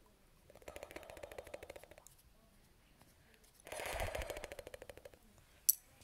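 Kitten purring: a rapid, even rattle in two spells of about a second and a half each, with a single sharp click near the end.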